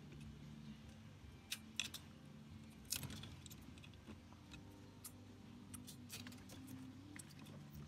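Small plastic clicks and taps as the air-con knob's white plastic switch piece is handled and fitted into its black plastic housing, with a few sharper clicks about a second and a half in and again near three seconds.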